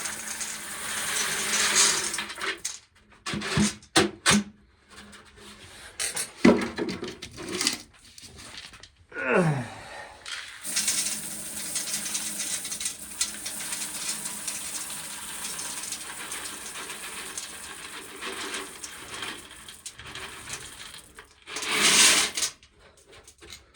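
Irregular clattering and rattling of hand work, with several sharp knocks in the first few seconds, as a stray corn cob end is cleared out.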